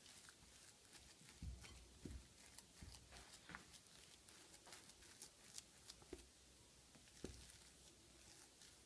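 Faint, irregular soft thuds and clicks of a silicone spatula pressing and turning thick mashed-potato dough against a glass bowl.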